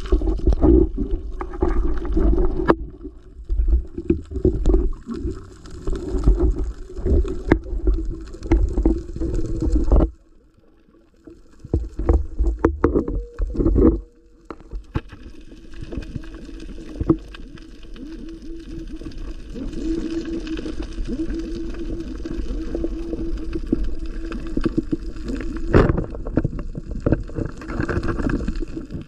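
Muffled water sound picked up by a camera held underwater: loud, uneven sloshing and gurgling with knocks for the first ten seconds or so, then a quieter, steadier underwater hiss with a low hum and a single knock near the end.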